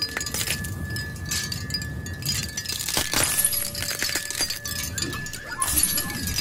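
Glassy, chime-like tinkling: light clinks over a few long, steady ringing tones.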